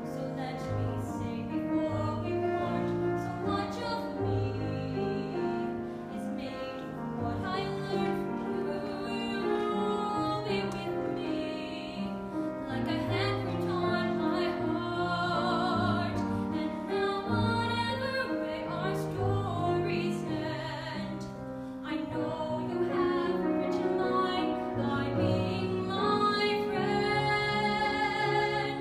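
Girls singing a stage-musical song with grand piano accompaniment, the voices held on long notes with vibrato.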